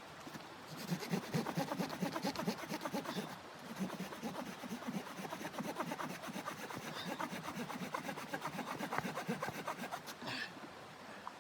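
Hand saw cutting through wood in rapid back-and-forth strokes, pausing briefly near the end.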